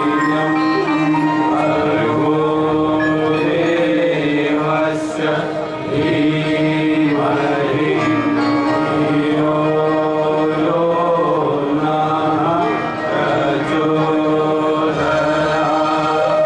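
Devotional Indian chanting: voices singing a mantra-like melody over steady, sustained instrumental tones, continuous and unbroken.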